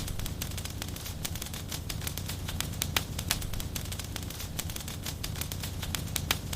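Fire in a fireplace crackling: a dense, irregular run of small pops over a low steady rumble, with a louder snap about three seconds in and another near the end.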